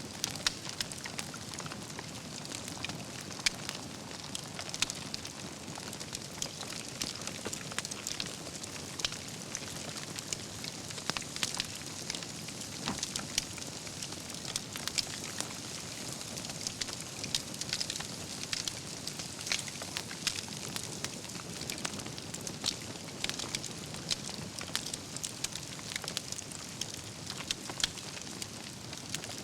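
Wood campfire burning, logs crackling with many irregular sharp pops over a steady low hiss of flames.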